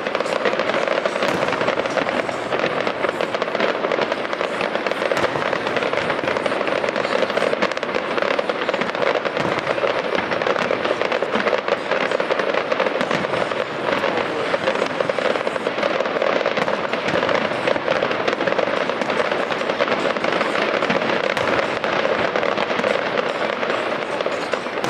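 Fireworks crackling and popping continuously: many small bursts overlapping with no break.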